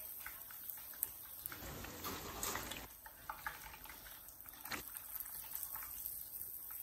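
Cornmeal-battered fish frying in hot grease: a faint, steady sizzle and bubbling that swells briefly about two seconds in, with a few light clicks.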